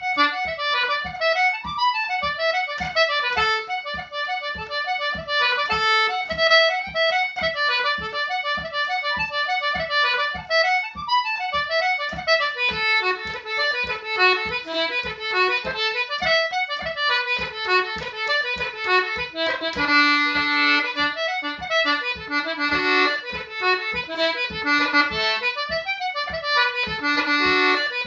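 Concertina playing an Irish reel solo: a quick, unbroken run of notes over an even beat.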